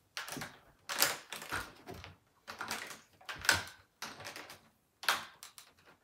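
Irregular plastic clicks and knocks from an upright vacuum cleaner being handled while its motor is not running.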